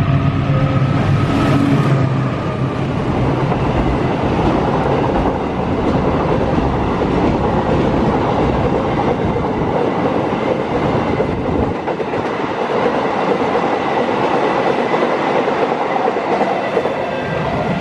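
Freight train passing close by: the diesel locomotive's engine is heard in the first couple of seconds, then the steady rolling rumble and clatter of flat container wagons running over the rails.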